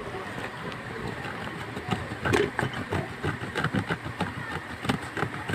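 Whole eggplant being rubbed up and down a metal box grater: rasping scrapes that pick up about two seconds in and go on as a quick run of strokes, several a second.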